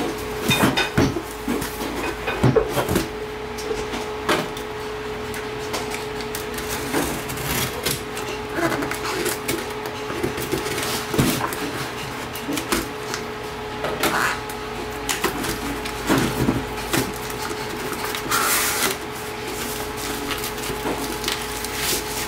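Cardboard shipping box being opened by hand: irregular knocks and taps of the box on the table, a utility knife scraping through the packing tape, and scratchy rustles as the cardboard flaps are pulled open, over a faint steady hum.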